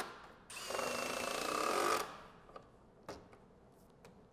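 Milwaukee Surge hydraulic impact driver driving a screw into wood. Its rapid hammering starts about half a second in and runs for about a second and a half, then stops. A few light clicks follow as the next screw is handled.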